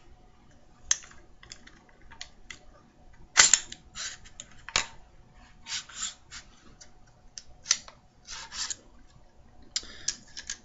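Metal clicks, scrapes and knocks of an AR-15 being taken apart by hand: the charging handle and bolt carrier group sliding and clacking out of the upper receiver. Two sharp metal clacks stand out about a third and halfway through.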